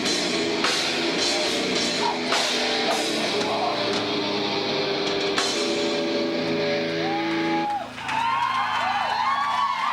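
Live rock band playing loud guitar, drums and singing, stopping abruptly near the end, followed by the crowd cheering.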